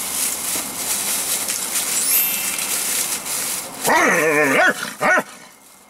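A plastic carry-out bag rustling and crinkling for several seconds, then a man lets out a long yell with a wavering pitch and a short second cry after it.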